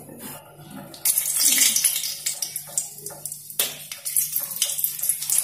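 Hot oil in an aluminium kadai sizzling and spluttering as dried red chillies and whole spices are dropped in for tempering. The crackling hiss starts about a second in.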